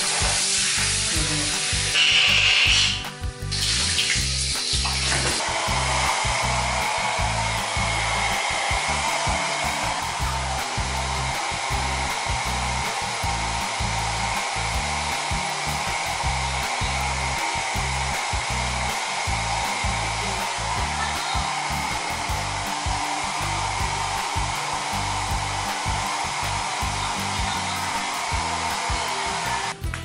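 Hand-held hair dryer blowing steadily on a wet parakeet, drying its feathers after a bath, with a faint steady whine. It settles into its even rush about five seconds in, after a louder, uneven rush about two seconds in.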